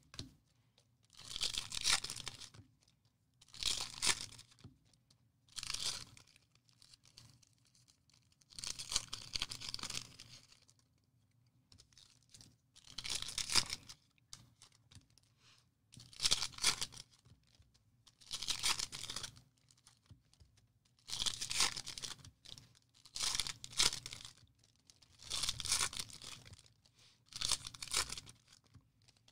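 Wrappers of 2021 Elite football card packs being torn open one after another, a short ripping crinkle every two to three seconds.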